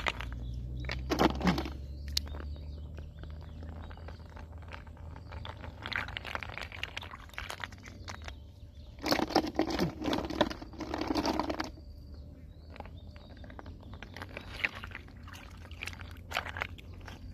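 Hands sloshing a handful of large apple snails through a shallow muddy puddle: water splashing and swishing with shells knocking together, in irregular bursts, the longest and loudest about nine to twelve seconds in.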